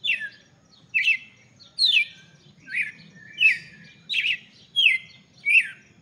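Young male red-cowled cardinal (galo-de-campina) singing: a run of about eight short whistled notes, each sliding down in pitch, roughly one every three-quarters of a second.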